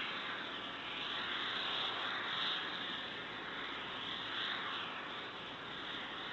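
Steady rushing hiss with slow swooshing sweeps: the Starship Super Heavy booster venting propellant vapour on its launch mount after a static fire.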